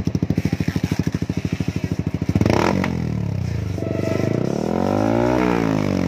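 Motorcycle engine running through an aftermarket Akrapovič-branded slip-on muffler with mid pipe, idling with an even pulsing beat. The throttle is blipped a little past two seconds in, then the revs climb to a peak and drop back near the end.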